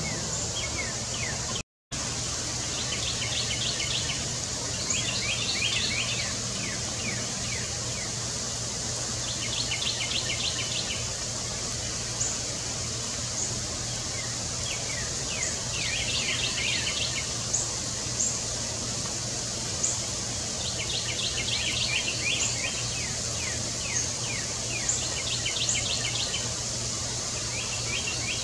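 A songbird sings a short, rapid buzzy trill over and over, about six phrases a few seconds apart, with brief high chip notes in between, over a steady low hum.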